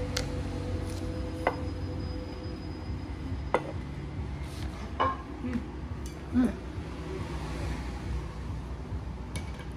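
Ceramic plates clinking and knocking as they are handled, with several sharp clinks a second or two apart, over a steady low rumble.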